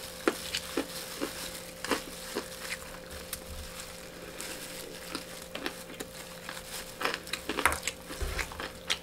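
Scattered close-miked crinkles and crackles from a disposable plastic food glove and aluminium foil as a gloved hand picks up rice, mixed with chewing. The crackles are thickest near the end.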